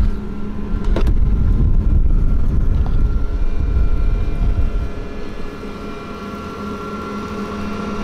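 Low rumble of a pickup truck driving across a stubble field, easing off about five seconds in as it slows, with the steady hum of a John Deere 9600 combine running close alongside. A single click about a second in.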